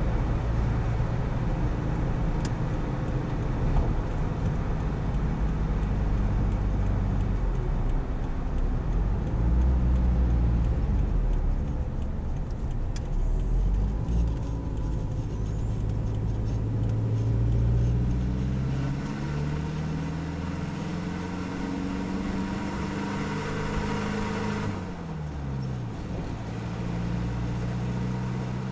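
Isuzu KB300's 3.0 turbo-diesel engine and stock exhaust under way, heard from underneath the truck. The engine note climbs steadily through the second half, then drops sharply near the end.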